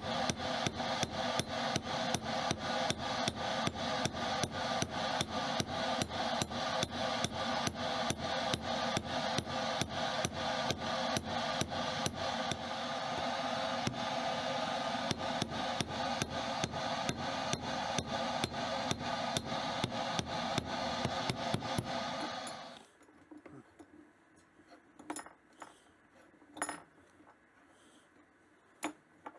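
Hand hammer striking a red-hot steel bolt on a railroad-track anvil, about three blows a second, each with a metallic ring, as the bolt is forged flat into a knife blade. The hammering stops a few seconds before the end, leaving a few light metal knocks.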